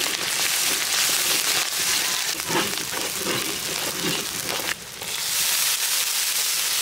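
Onions, green chillies and spice pastes sizzling in hot oil in a large metal wok while they are stirred, a loud, dense hiss. The sizzle drops out briefly about five seconds in, then comes back stronger as water goes into the pan.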